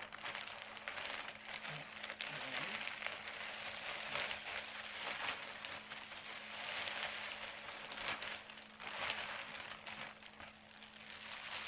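Plastic bags crinkling and rustling in waves of fine crackles as hands open a zip-top bag and handle a clear plastic bag.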